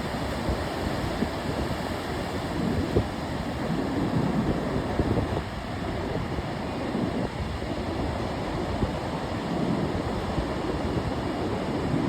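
Ocean surf washing in steadily, with wind gusting over the microphone.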